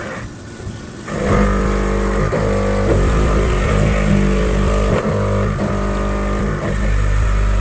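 Background music with a heavy bass line and notes changing about every half second, after a short quieter dip at the start.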